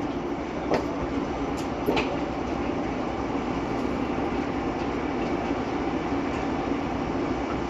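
Steady hum of a rubber-tyred automated people-mover train standing at a station with its doors open, with a couple of faint knocks in the first two seconds.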